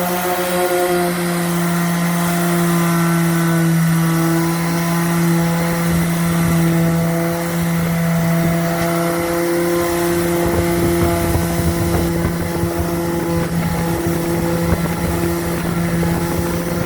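Power sander with 80-grit paper running steadily against a fibreglass hull bottom, a constant motor hum over the rasp of the abrasive.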